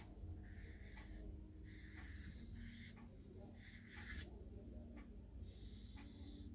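Faint scratchy brush sounds: a watercolour brush working paint on a palette, then short strokes across watercolour paper, with a few light taps.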